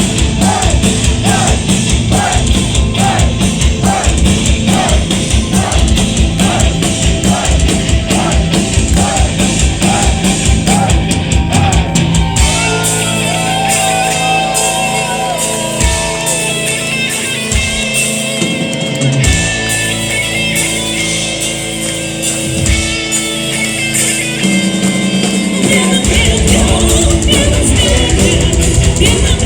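Live folk metal band playing with singing: distorted guitars, bass and pounding drums. About twelve seconds in, the drums and low end drop out for a quieter passage of held notes and voice, and the full band comes back in near the end.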